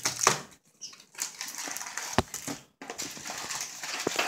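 Foil-wrapped trading card packs crinkling and rustling as they are pulled out of a cardboard box, with a few sharp taps as packs are set down on the table; the loudest tap comes about two seconds in.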